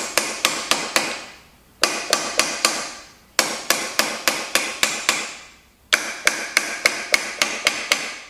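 Hand ratchet clicking in runs of about five clicks a second, with short pauses between runs, as the handle is swung back and forth. The ratchet is working the spanner tool on a stuck aluminium head gland of a skid-steer lift cylinder.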